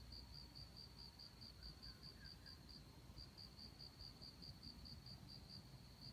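Faint, even chirping of an insect: one high note pulsed about four to five times a second, with a brief pause about three seconds in.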